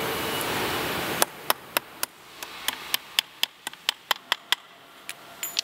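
A steady rushing hum that cuts off about a second in, then a run of sharp, irregular metallic clicks and taps, a few with a short ring, as parts are fitted by hand onto an electric bike's rear wheel hub.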